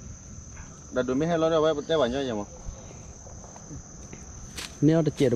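Steady high-pitched insect chorus, a continuous trill like crickets, under men's voices talking briefly; two sharp clicks near the end.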